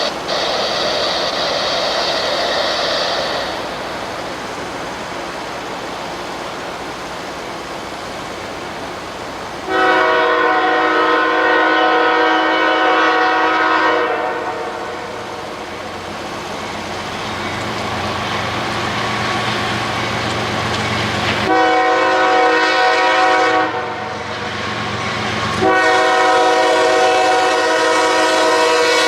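Diesel locomotive's multi-chime air horn sounding a long blast, then after several seconds a shorter blast followed by another long one, over the rising rumble of the approaching train.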